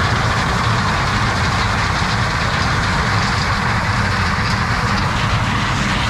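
John Deere S670 combine harvesting corn: a steady engine drone with the even rushing noise of the crop going through the machine.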